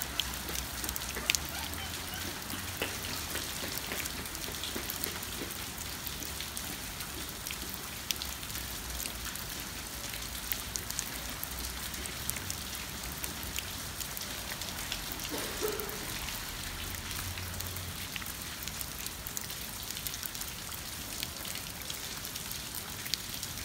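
Steady rain falling on wet paving stones: an even hiss with many sharp little drip and splash ticks scattered through it.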